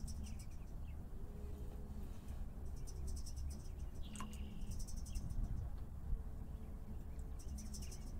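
Insects chirping in short repeated trains of rapid high-pitched pulses, over a steady low rumble; a brief falling bird-like call about four seconds in.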